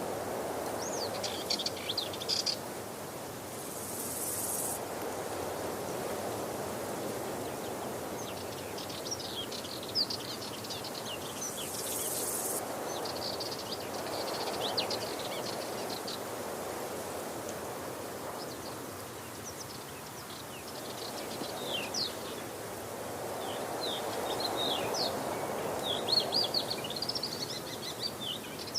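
Waterfall rushing steadily, swelling and easing slowly every several seconds, with small birds chirping in quick high twitters on and off.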